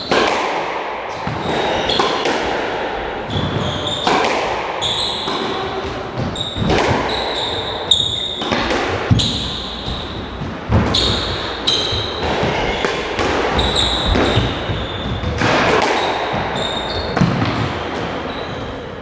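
A squash rally in a walled court: the ball cracks off rackets and walls in sharp, echoing hits about every second or so, the loudest about eight and nine seconds in. Short high squeaks of court shoes on the wooden floor come between the hits.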